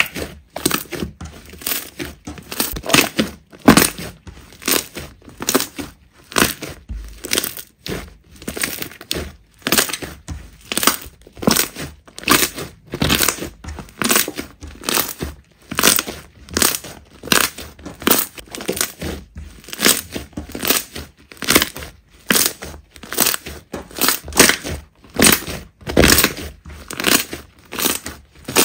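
Slime being squeezed and pressed by hand, each press giving a short crackling squish, about one and a half presses a second.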